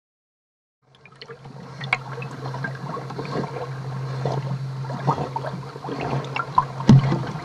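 Water sloshing and gurgling close to the microphone, with many small splashes and clicks over a steady low hum; it fades in about a second in and grows slowly louder.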